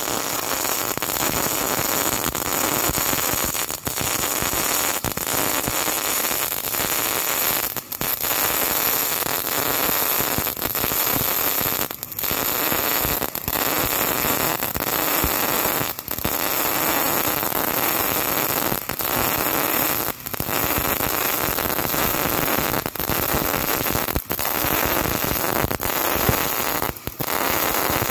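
MIG welding arc with solid steel wire, running continuously as a bead is laid in the horizontal position, with short dips in level every couple of seconds.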